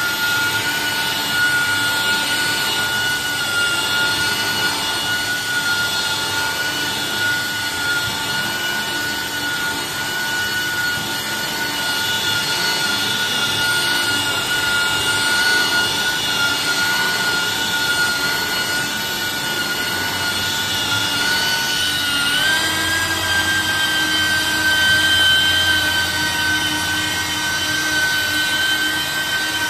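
Corded electric car polisher running with its foam pad on the paintwork, giving a steady high motor whine. About three-quarters of the way through, its pitch steps up and holds at the higher note.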